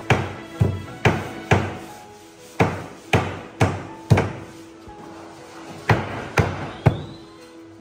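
Hammer blows on wood in quick runs of four, about two a second, with short pauses between runs, over background music.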